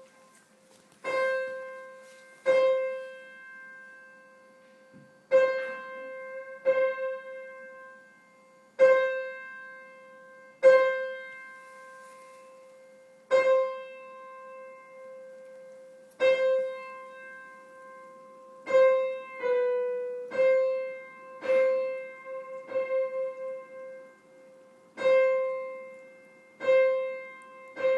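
A piano being tuned: one note, a little above middle C, is struck again and again every one to three seconds, each strike ringing and dying away. About twenty seconds in, the note sounds slightly flat for a moment, then comes back to pitch.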